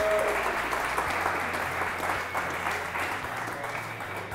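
Audience applauding, many people clapping their hands, gradually dying down toward the end.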